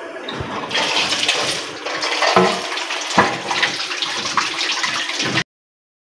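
Tap water running and splashing onto hands and eggs over a stainless steel bowl in a steel sink as the eggs are rinsed, with a few sharp knocks. The sound stops abruptly near the end.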